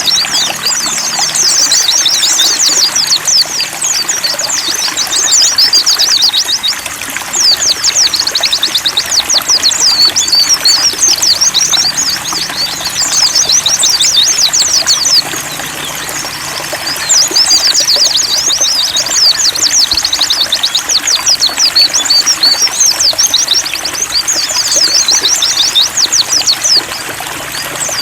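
A white-eye (pleci) sings long runs of fast, high chattering phrases with short pauses between them, over a steady trickle of running water.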